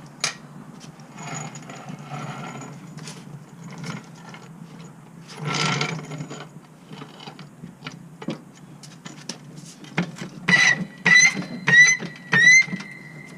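Wrench loosening a car's wheel lug nuts: scraping and handling noise, then four short metallic squeaks near the end, each rising slightly in pitch, and a longer held squeak.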